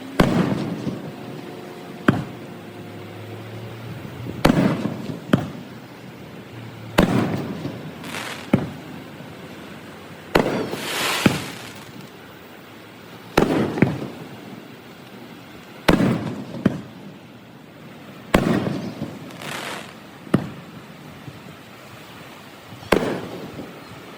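Festival fireworks going off: a string of sharp bangs every second or two, each trailing off, with a longer crackling hiss from a shell about midway. The footage runs at double speed, so the bursts come closer together than in real time.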